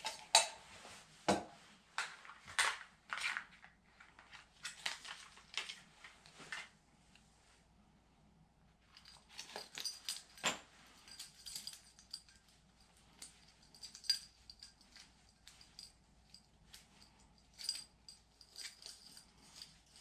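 Small metal camping gear handled by hand: a titanium mug clinks and taps several times, then, after a short lull, lighter metallic clicks and clinks with a faint ring as a gas canister stove and its cartridge are handled.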